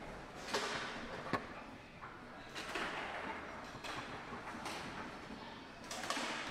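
Foosball table in play: a handful of irregular sharp clacks from the ball against the plastic figures and the rods knocking and sliding, over faint room noise.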